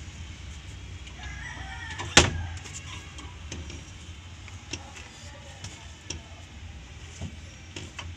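Small clicks and knocks of hand tools working on a van's gear shift linkage, with one loud sharp knock about two seconds in, over a steady low hum.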